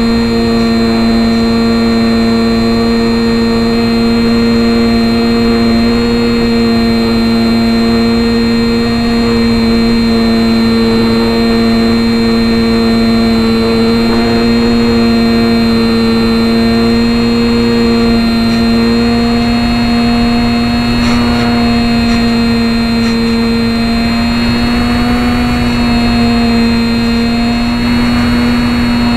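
Electric motor and propeller of a HobbyZone Champ RC airplane humming steadily, heard from a camera mounted on the plane. Its pitch shifts a little in the last third.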